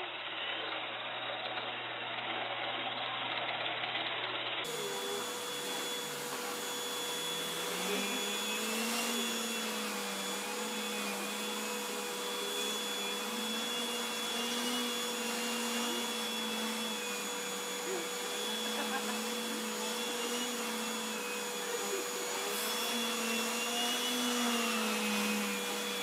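Vacuum cleaner running, its hose nozzle working over carpet: a steady rushing drone with a whine that wavers up and down in pitch. The first few seconds are a robot vacuum running, cut off abruptly about four and a half seconds in.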